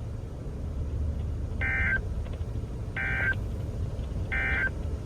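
Emergency Alert System end-of-message data bursts: three short, buzzy digital squawks about 1.3 s apart, over a steady low hum. They mark the end of the broadcast warning.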